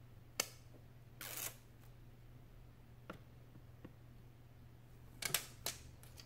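Light clicks and taps from a replacement tablet touch-screen glass panel and a metal pry tool being handled on a desk. One sharp click comes early, a brief scraping rustle about a second in, faint ticks in the middle, and a quick cluster of clicks near the end as the panel is laid down.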